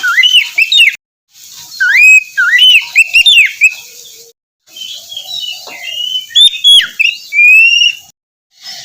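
Oriental magpie-robin (kacer) singing: loud runs of clear whistled notes that slide up and down, in phrases broken by sudden silent gaps about a second in, about four seconds in and near the end.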